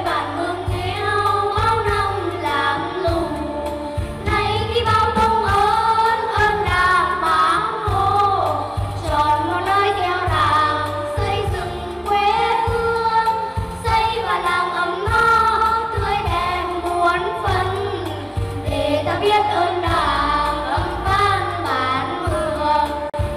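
Voices singing a Nghệ Tĩnh folk song (dân ca) to an instrumental accompaniment with a steady pulsing bass.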